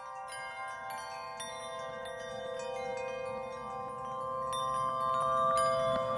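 Background music of chimes: scattered high struck notes ringing and fading over a steady held chord.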